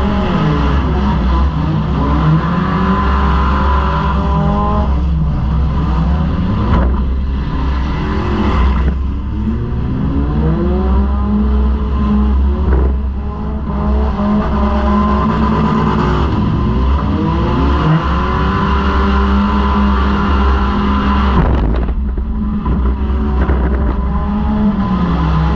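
Four-cylinder demolition derby car's engine heard from inside the car, revving up and falling back again and again over a heavy low rumble, with a few brief lets-off.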